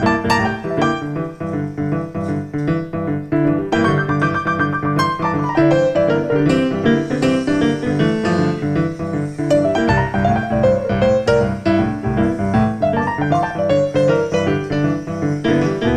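Piano music played as a soundtrack, a busy run of notes at a steady level.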